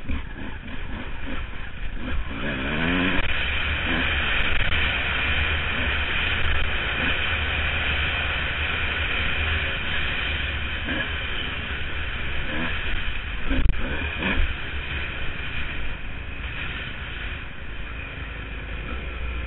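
Honda CR250 two-stroke dirt bike engine revving up about two seconds in, then running on under throttle over a heavy low rumble, with a few knocks a little past halfway.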